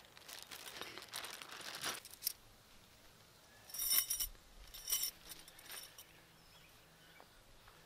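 Lightweight metal tent stakes slid back into their small fabric stake sack: the sack's fabric rustles for the first two seconds, then the stakes clink together in two short bursts of ringing chinks, about four and five seconds in.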